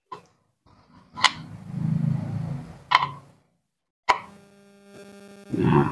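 Handling sounds of a blender's metal blade shaft and washer being worked into the plastic cup base's bushing: sharp clicks about a second or more apart, with a low rubbing rumble between the second and third. Near the end a steady hum comes in under a brief louder rumble.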